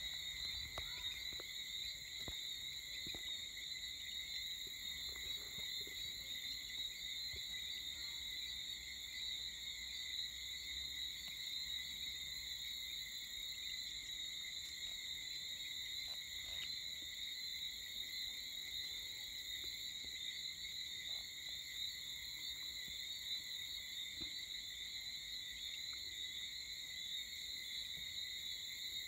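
A steady chorus of calling insects: an unbroken, high-pitched ringing at several pitches at once.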